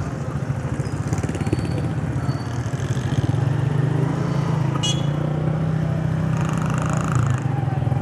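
Honda CG 125's single-cylinder four-stroke engine running steadily under way through city traffic, heard from the rider's position, with a brief sharp high sound about five seconds in.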